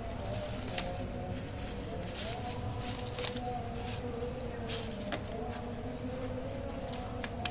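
Paper or wrapping being crinkled and rustled, with a handful of sharp crackles at irregular moments, over a steady background hum whose pitch wavers slightly.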